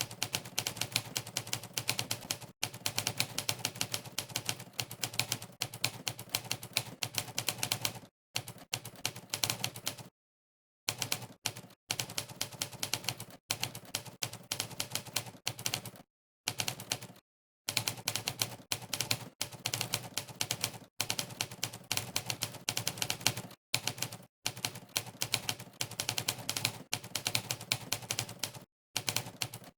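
Typewriter key-strike sound effect from Monkeytype, one click per keystroke, in a fast continuous rhythm of many strokes a second. It drops out in several short pauses, the longest at about 8, 10 to 11 and 16 to 17 seconds in, where typing stops.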